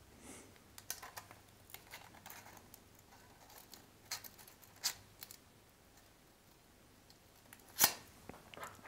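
Faint, scattered light clicks and taps of a piston ring being set down into an engine block's cylinder bore and squared by hand, with one sharper click near the end.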